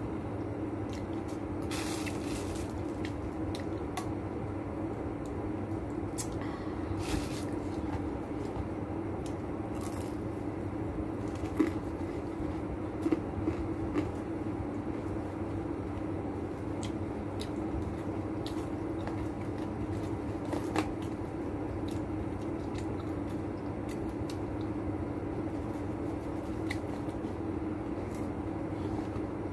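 Someone eating fried chicken: chewing, with the rustle of a paper box being handled and a few short clicks, over a steady low hum.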